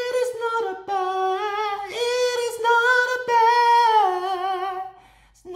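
A man singing on his own with no accompaniment, in a high voice, holding long drawn-out notes with vibrato. The line steps down in pitch and breaks off briefly near the end.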